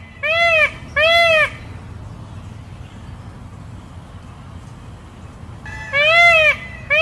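Indian peafowl (peacock) calling: two loud, high calls in quick succession about half a second in, each lasting about half a second and rising then falling in pitch, then another call near the end.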